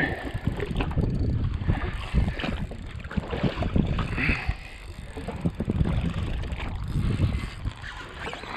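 Wind buffeting the microphone and small waves slapping against the hull of a drifting jet ski, with uneven knocks and rustles.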